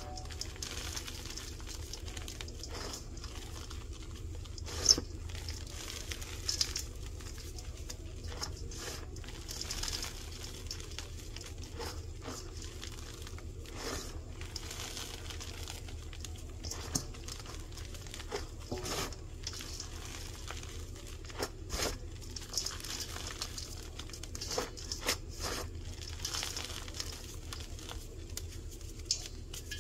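Hands crushing and squeezing dyed baking soda blocks in a bowl: irregular soft, dusty crunches as the blocks break into powder, the sharpest about five seconds in. A steady low hum runs underneath.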